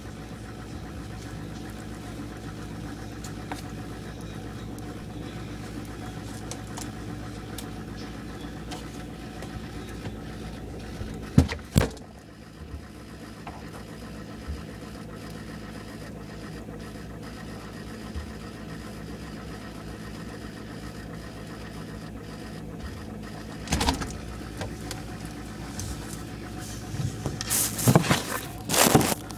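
Refrigerator humming steadily. About twelve seconds in come two sharp knocks, after which the deepest part of the hum drops away. Another knock comes about halfway through the rest, and a cluster of knocks and rustles near the end.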